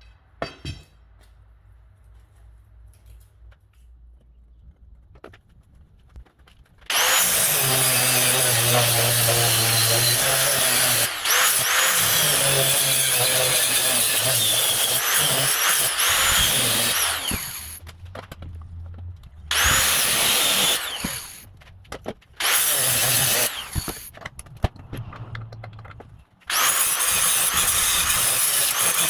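A handheld power tool running in long stretches, stopping and starting again several times, loud and with a high hiss over a low hum. Before it comes in there is a quiet lull with a single click.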